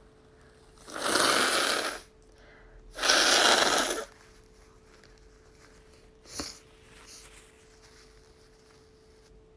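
A woman blowing her runny nose hard, twice, each blow a rush of air lasting about a second. A short, softer sound follows a couple of seconds later.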